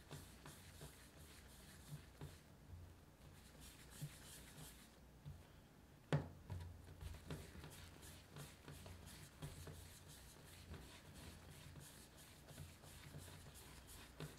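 Faint rubbing and light tapping of bread dough being rounded by hand against a smooth tabletop, with one louder soft thump about six seconds in as a dough ball is set down.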